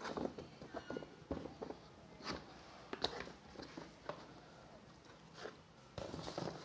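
Scattered light clicks, knocks and rustles of a hair dryer's cardboard box and packaging being handled and opened.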